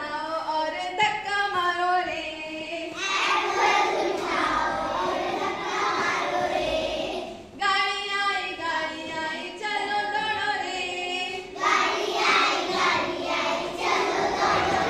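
A class of young schoolchildren singing a song together in unison, in a couple of phrases with a short break about halfway through.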